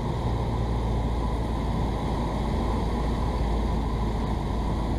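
Cessna 172's engine and propeller running steadily, heard inside the cabin as a constant low drone during the final approach.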